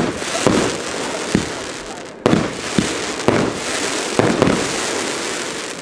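Aerial fireworks going off in quick succession: about eight sharp bangs, spaced half a second to a second apart, over a continuous rushing noise of the display, with a brief lull about two seconds in.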